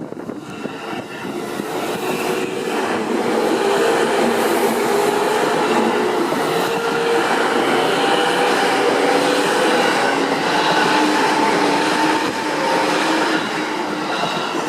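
Electric commuter train passing at speed on the Kawagoe Line, its wheels clattering over the rail joints. It grows loud within the first few seconds, stays loud through the middle and fades near the end as it goes by.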